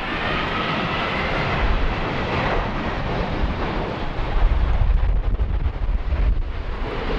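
Jet airliner on landing approach passing near, its engines giving a steady roar with a faint high whine in the first couple of seconds. Wind gusts buffet the microphone with a low rumble.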